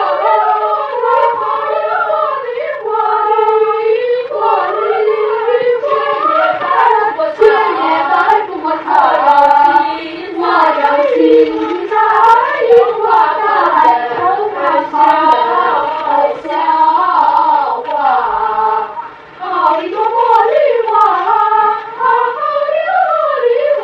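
A group of schoolchildren singing a song together in unison, with one short break between phrases about three quarters of the way through.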